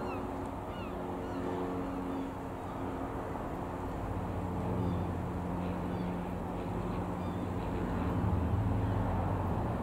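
Jabiru UL-450 light aircraft's four-cylinder Jabiru engine and propeller droning steadily overhead, growing a little louder near the end. Birds call briefly at the start.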